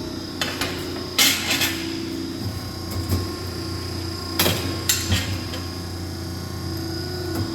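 Piranha P-50 hydraulic ironworker with its hydraulic pump running as a steady hum, broken by several sharp knocks, the loudest about a second in and a cluster around four and a half to five seconds in.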